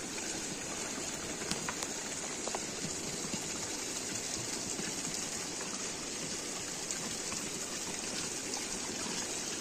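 Water from a small stream running steadily over stones: an even rushing hiss, with a few faint clicks.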